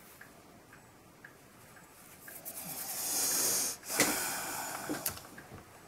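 A person breathing heavily close to the microphone: a long, noisy exhale starting about two seconds in, then a light click and a second, shorter breath.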